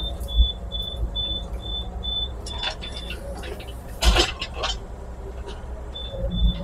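Small excavator's engine running with a steady low hum while it pushes a broken concrete porch pad, with a loud clatter about four seconds in and a smaller one a little before. A high pulsing tone repeats about three times a second, stops partway through and returns near the end.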